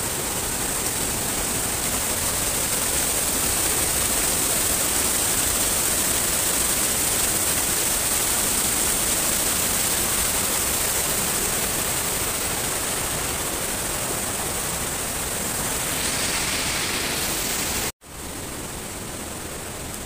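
A waterfall splashing onto rocks beside a river rushing through rapids: a loud, steady, unbroken wash of falling and churning water. Near the end it cuts out for an instant and comes back quieter.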